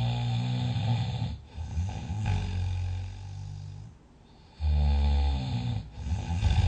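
A person snoring in deep sleep: two snoring breaths, one at the start and one about four and a half seconds in. Each is a loud snore that settles into a quieter, lower rumble before a brief pause.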